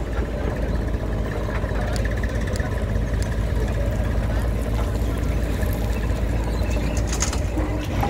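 JCB backhoe loader's diesel engine running steadily under load as the backhoe digs and swings its bucket, with a brief clatter near the end.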